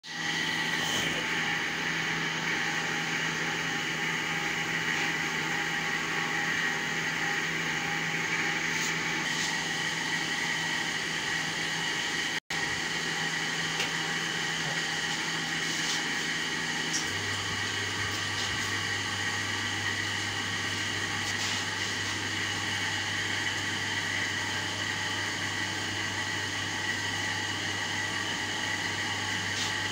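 Electric hydraulic pump unit of a concrete cube compression testing machine running with a steady hum and a higher whine. About halfway through, the sound breaks off for an instant. Some seconds later, the low hum drops to a deeper pitch.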